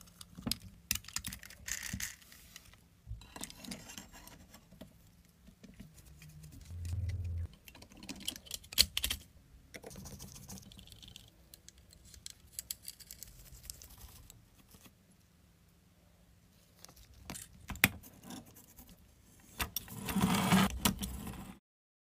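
Light clicks, taps and small rattles of metal and plastic model-locomotive parts being handled and fitted by gloved hands, with a louder stretch of rustling handling noise near the end before the sound cuts off suddenly.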